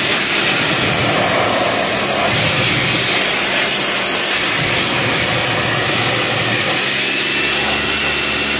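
Pressure washer running steadily, its jet spraying water against a plastic spin-dryer tub and into its drum: a loud, even hiss over the motor's hum, which grows stronger near the end.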